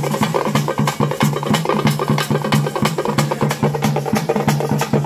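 Live folk drumming: drums beaten in a fast, even rhythm of sharp strokes, with a steady low tone sounding under the beat.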